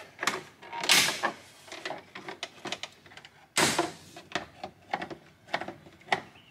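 Hard plastic dash trim on a Chevy Silverado being pulled loose and handled: a string of irregular clicks, snaps and short scrapes, with a denser cluster about a second in.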